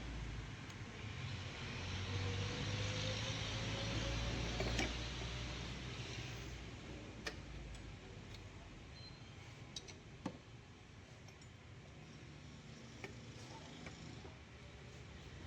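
A vehicle passing, its noise swelling and then fading over the first several seconds. It is followed by a few scattered sharp clicks and taps of tools being handled.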